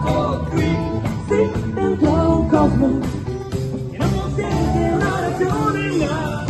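Live rock band playing: electric guitars, bass and drum kit under a wavering lead melody line.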